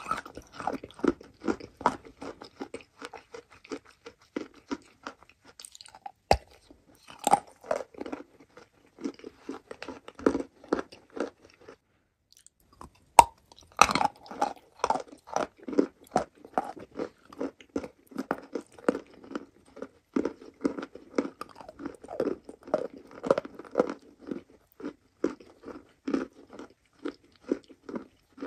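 Close-up crunching and chewing of a chalk block coated in a wet paste: rapid, crisp crunches, a short pause a little before the middle, then a fresh hard bite and a steady run of chewing crunches.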